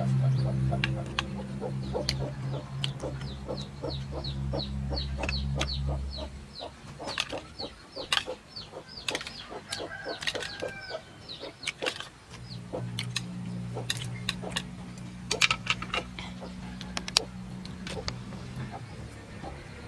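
Chopsticks and a metal spoon clicking against a metal tray as someone eats. Chickens cluck and a bird chirps in quick repeated descending notes, and a low steady hum runs for the first few seconds, stops, then comes back past the middle.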